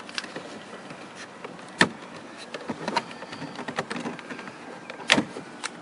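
Plastic door trim being pried loose by hand: a few sharp plastic clicks and snaps, two louder ones about two seconds in and near the end, over a faint steady hiss.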